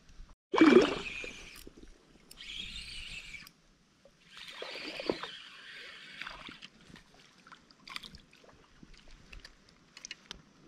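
Water splashing and sloshing in three bursts, the loudest about half a second in, followed by a few faint ticks.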